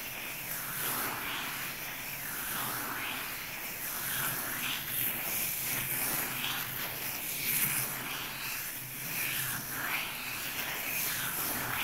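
Irregular hissing, rustling noise that swells and fades every second or so.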